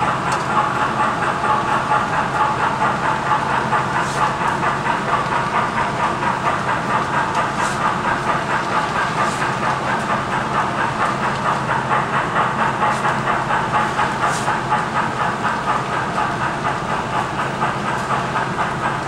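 Freight cars of a model train rolling steadily past on the layout's track, their wheels making a fast, even clicking over the rail joints over a steady low hum.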